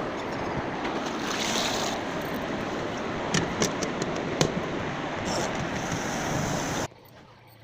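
Steady rush of water with a few sharp clicks about halfway through, cutting off suddenly near the end.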